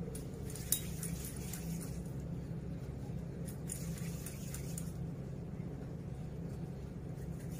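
Soft handling sounds of dough on a metal board: a single sharp tap about a second in as the knife is laid down on the aluminium board, then a soft rubbing around the middle as a piece of dough is rolled into a ball under the palm on the board. A steady low hum runs underneath.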